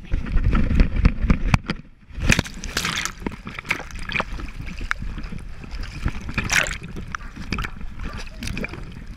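Running dog heard from a camera on its head: wind rumble and footfalls down the dock, a short lull in the air, then a big splash about two seconds in as it lands in the pool. After that the dog swims, with water sloshing and splashing right against the microphone.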